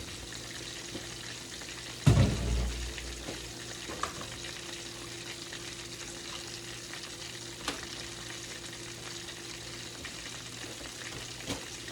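Fish and shrimp frying in a pan, a steady sizzle, with one loud thump about two seconds in and a couple of light clicks later. A low steady hum runs underneath.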